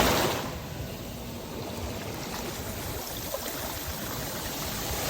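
Ocean surf at the water's edge: a breaking wave dies away in the first half-second, then water runs and trickles steadily over the sand, and the next wave starts to build near the end.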